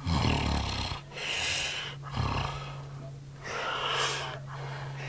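A man snoring: rattling, snorting in-breaths alternate with wheezy, hissing breaths, two rattles and two breaths in all, with a steady low hum underneath.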